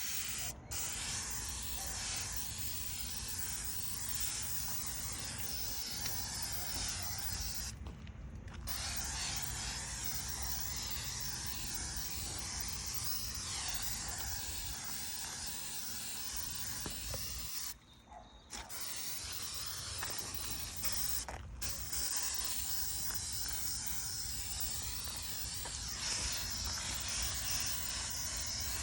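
Pressure washer spraying a steady, hissing jet of water onto metal mini bike parts, blasting off paint softened by stripper. The spray stops briefly three times, about 8, 18 and 21 seconds in.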